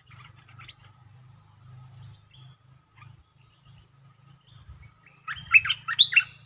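Stripe-throated bulbul singing: scattered soft chirps, then, about five seconds in, a loud burst of quick rising whistled notes lasting about a second.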